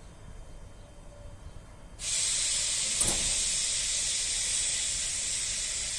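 Compressed air hissing out of a train's air brake system, starting suddenly about two seconds in and continuing steadily, with a brief knock a second later.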